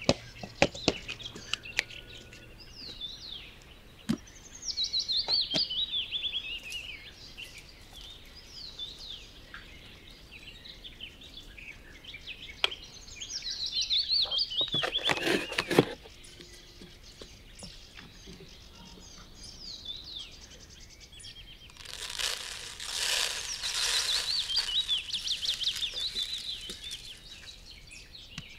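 A songbird sings phrases of fast, high trills several times over. Scattered clicks and knocks, plus a rustling crumple a bit past two-thirds through, come from a cardboard box being handled.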